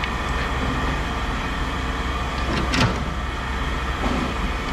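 A vehicle engine running steadily with a low hum, and a single sharp knock a little under three seconds in.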